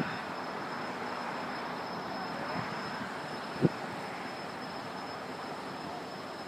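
Distant jet aircraft engine noise: a steady rumble that slowly fades, with a faint shifting whine partway through. Two sharp knocks stand out, one at the very start and one about three and a half seconds in.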